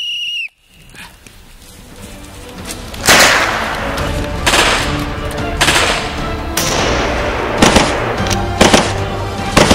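A whistle's steady shrill blast cuts off about half a second in. After a short hush, film music swells, and from about three seconds in loud gunshots crack out roughly once a second over the music.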